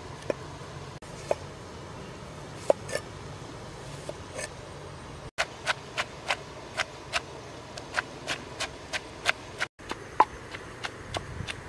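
A few scattered sharp knocks as a cleaver slices vegetables over a wooden mortar, then a wooden pestle pounding salad in the wooden mortar: steady, sharp knocks about three a second.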